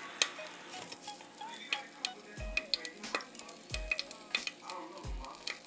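Silicone-tipped tongs clicking and scraping against a metal air fryer basket while lifting out hot chicken pieces, with grease sizzling faintly. Low thuds come about every second and a half.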